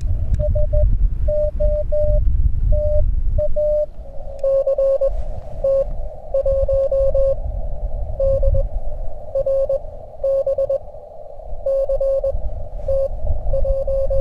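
Morse code from the LNR Precision LD-11 transceiver's speaker. For about four seconds it is the operator's own keying sidetone; then the radio drops back to receive, and another station's slightly lower-pitched Morse reply comes in over a band of receiver hiss. Wind rumbles on the microphone throughout.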